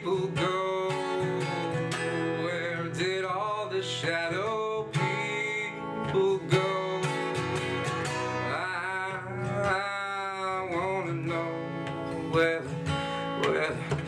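A man singing and strumming an acoustic guitar, with chords struck steadily under long, sliding vocal notes.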